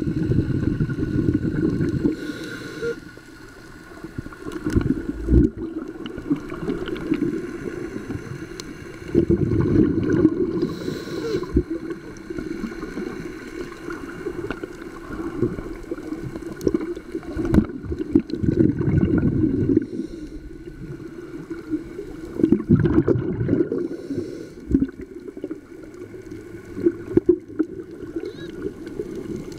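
Scuba breathing heard underwater: the regulator's exhaled air bubbles out in gurgling bursts every five seconds or so, with quieter stretches between breaths.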